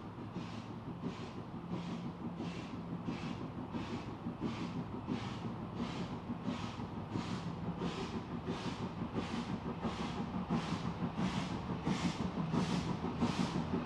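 Kitson-built steam tank locomotive working: even exhaust beats, a little under two a second, growing slightly quicker and louder over a low running rumble.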